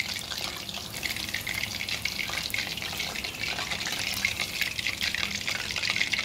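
Battered chicken wings deep-frying in hot oil: a steady, dense sizzle and crackle of bubbling oil.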